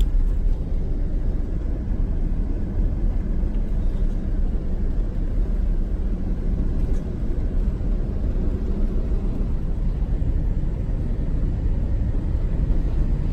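Steady low rumble of a vehicle driving, heard from inside the cabin: engine and road noise.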